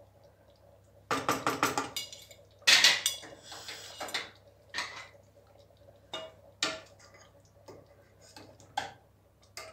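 Utensils knocking and clinking against a stainless steel pot: a quick rattle of knocks about a second in, a louder clatter near three seconds, then scattered single clinks of a metal ladle on the pot as stew is ladled out.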